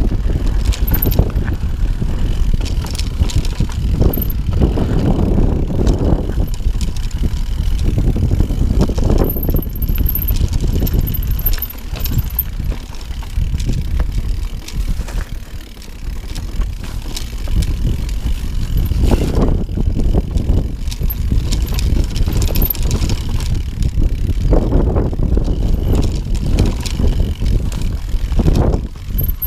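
Mountain bike riding down a stony trail: a steady low rumble from the tyres rolling over rocks, with frequent clicks and knocks as the bike rattles over the stones.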